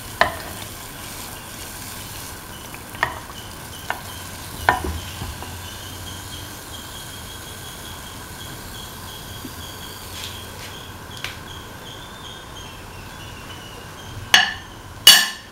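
Semolina pancake frying in hot oil in a pan, a steady sizzle, with a few sharp knocks of a metal spoon against the pan. Two louder clanks come near the end as the golden-brown pancake is taken out of the oil.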